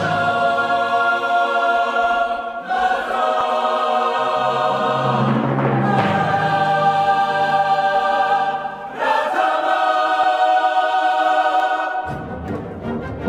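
Background music of long held choral chords, the harmony shifting a few times, with a low sustained note underneath for part of it.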